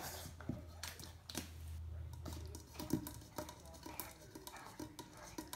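A puppy splashing and lapping in its water bowl: irregular small splashes, laps and clicks against the bowl.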